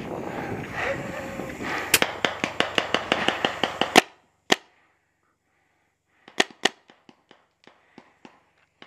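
Magazine-fed paintball marker firing a fast string of shots, about six a second, for around two seconds over a rustle of movement, then a single shot. From about six seconds in, scattered quieter paintball shots pop at uneven spacing.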